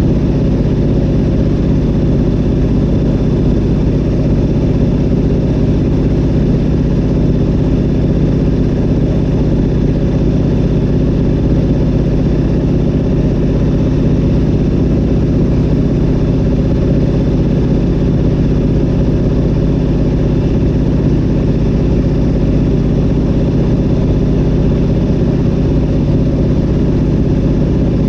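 Zlin Z-37A-2's nine-cylinder M-462RF radial engine and Avia V-520 propeller droning steadily in flight, heard loud from inside the cockpit.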